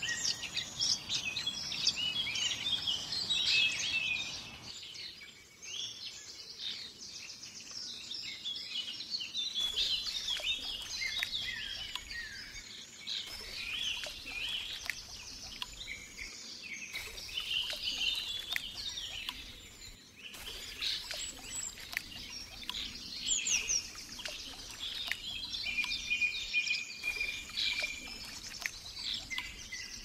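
A dense chorus of many songbirds singing at once: overlapping quick chirps, trills and gliding whistles, with one bird holding a steady whistled note near the end. A faint hiss under the first few seconds stops abruptly.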